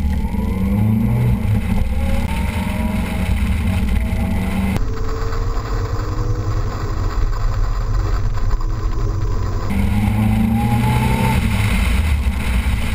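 Car engine pulling hard on a race track, its note climbing under acceleration several times, heard through heavy wind rumble on a microphone mounted outside the driver's door.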